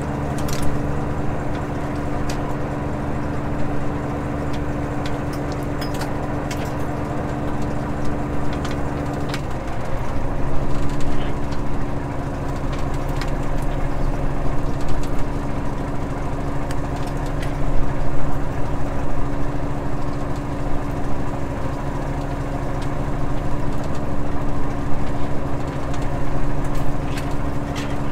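Fishing boat's engine running steadily, with its tone shifting briefly about nine to ten seconds in. Scattered clicks and knocks of gear on deck.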